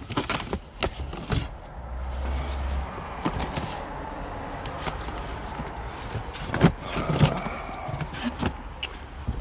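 Plastic DVD and CD cases clacking against each other and cardboard rustling as gloved hands rummage through a box of discs, with a couple of louder knocks a little past the middle. A brief low hum sounds about two seconds in.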